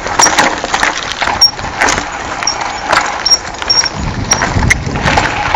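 Mountain bike rattling and clattering down a rough, rocky dirt trail: a steady run of sharp knocks and ticks from the bike over the bumps, with tyre noise and a low rumble about four seconds in.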